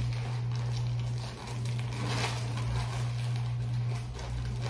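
Black plastic trash bag rustling and crinkling as it is handled and shaken open, with a louder rustle about two seconds in, over a steady low hum.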